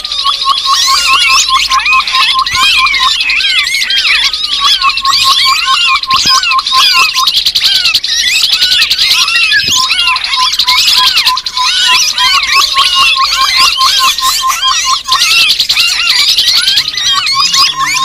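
Bird-lure recording of grey-headed babbler calls: a dense chorus of many overlapping high chirps, over a fast run of short notes on one low pitch that stops briefly a few times and starts again.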